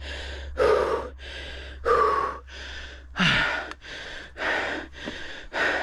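Heavy, fast panting of a mountain biker out of breath after a hard climb, his heart rate near its peak: gasping breaths about one every two-thirds of a second, every other one louder, with a brief falling voiced moan about three seconds in.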